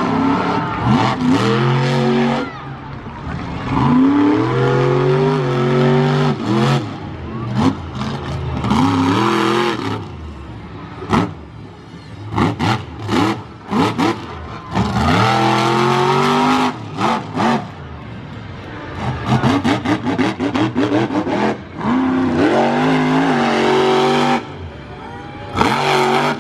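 Monster truck engine revving hard in repeated runs, its pitch climbing as the throttle opens and dropping away as it lifts, with short lulls between runs.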